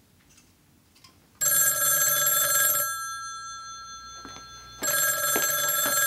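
An old desk telephone's bell ringing twice: a ring of about a second and a half starting about a second and a half in, then a second ring near the end, each ring fading out slowly after it stops.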